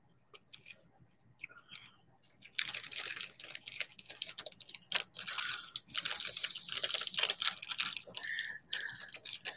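Hands rummaging through a box of small keepsakes. After about two and a half seconds of quiet, a dense run of clicks and rustles of objects being moved and handled begins and carries on.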